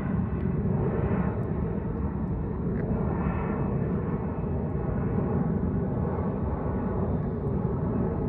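Jet airliner climbing away after takeoff, its engines heard as a steady low rumble that holds evenly, with a faint falling whine above it about a second in and again near three seconds.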